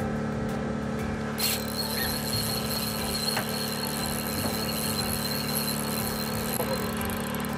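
Fishing reel squealing as a steady high whine with hiss, starting suddenly about a second and a half in and stopping near the end, while the rod is bent hard under a hooked cuttlefish. A steady low hum from the boat runs underneath.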